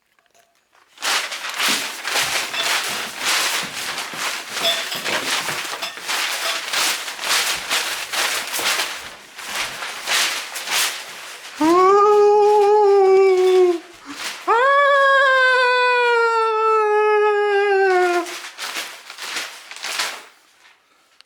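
An animal crying loudly: about ten seconds of harsh, rasping cries, then two long wailing calls, the second longer, starting higher and falling in pitch, then a few more harsh cries.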